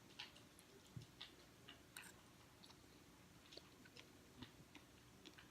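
Near silence, broken by faint scattered clicks of a person chewing a mouthful of dragon fruit.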